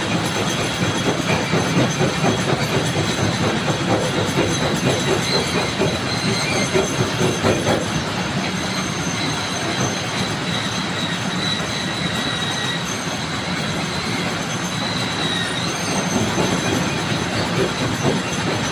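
Stone crusher machine running, stone clattering and grinding through it without a break, with a faint high squeal coming and going.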